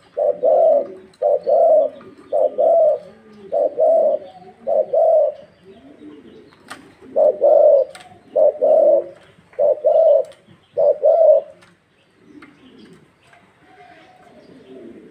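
Spotted dove (Thai 'vân rồng' cage-bird line) cooing hard: low, hollow coo notes, mostly in pairs, repeated in two runs with a short pause about six seconds in. The cooing stops about twelve seconds in, leaving faint chirps.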